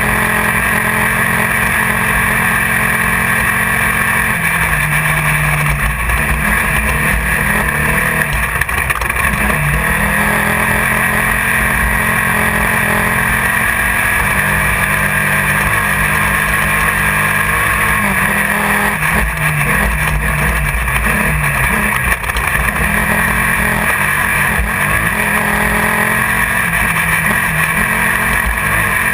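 Off-road race car at speed, heard from inside the car: the engine runs loud and steady, its pitch rising and falling with the throttle, over constant wind and rattling road noise.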